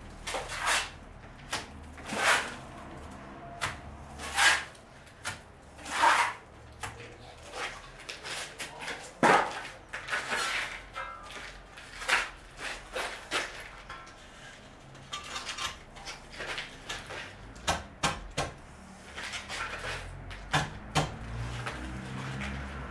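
Irregular scraping and knocking from hand work on a brick wall and steel lintel, with a louder knock about nine seconds in.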